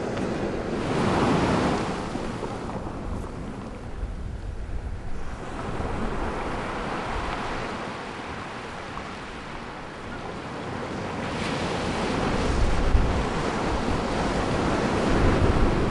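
Ocean surf washing in, a steady rush that swells about a second in, eases off, and builds again in the last few seconds.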